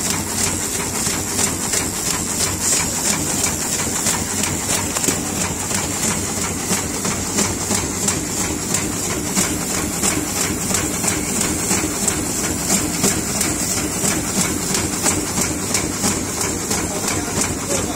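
Vertical form-fill-seal sachet packing machine running empty at 180 bags a minute: its sealing and cutting jaws cycle in a rapid, even clatter over a steady high hiss and low hum.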